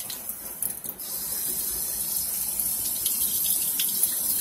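Kitchen faucet running lukewarm water into a stainless steel sink, the stream splashing over a frozen whiting fish held beneath it. The flow gets louder about a second in.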